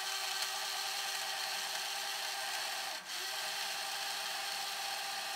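Small countertop blender motor running steadily, blending a thin liquid mix of eggs, mayonnaise, vinegar and water, with a brief dip about three seconds in.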